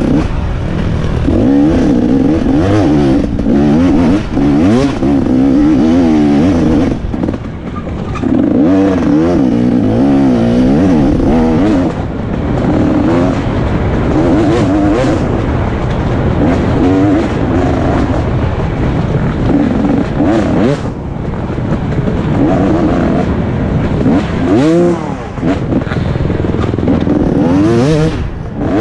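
A 2017 KTM 250 XC-W two-stroke single-cylinder enduro bike ridden hard on a trail, its engine revving up and down constantly. There are short throttle-offs every few seconds.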